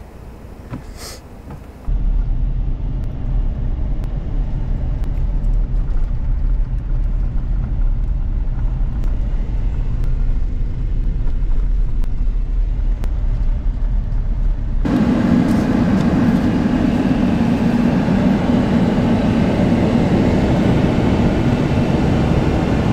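Chevrolet Silverado pickup truck driving: a steady low rumble of engine and road noise that starts suddenly about two seconds in. About fifteen seconds in it turns abruptly louder and fuller, and stays so to the end.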